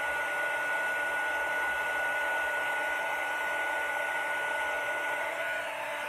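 Handheld embossing heat gun running steadily: a constant rush of blown air with a thin, steady high whine that drops out near the end.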